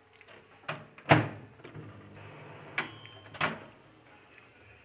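Dial-timer microwave oven being worked by hand: its door clunks several times, loudest about a second in, while the oven hums low for a couple of seconds, with a brief ringing ding partway through.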